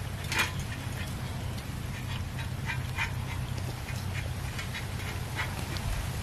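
Several cats eating raw fish from a steel bowl: many quick, irregular wet chewing, smacking and licking clicks, over a steady low hum.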